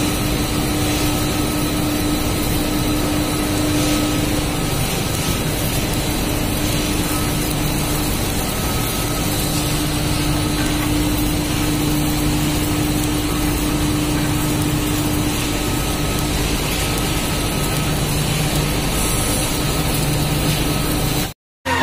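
Textile printing line machinery running steadily: an even mechanical noise with a constant hum, as printed fabric feeds over the rollers. It cuts off suddenly just before the end.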